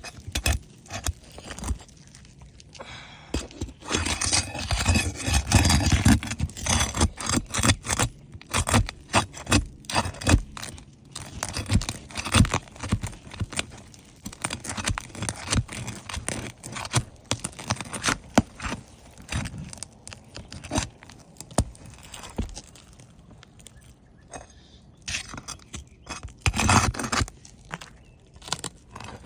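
Irregular scraping and sharp clicks of hand tools working under old, brittle roof shingles to lift them and get at the nails, which have pulled through. There are two louder, longer scraping stretches, one a few seconds in and one near the end.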